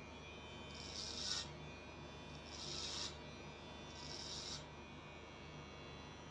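Electric hair clipper running steadily, with three short crisp bursts about a second and a half apart as its blades cut hair over a comb.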